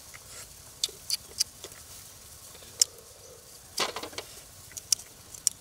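Cooking in a steaming wok over an open wood fire: scattered sharp clicks and crackles, with a short scrape about four seconds in.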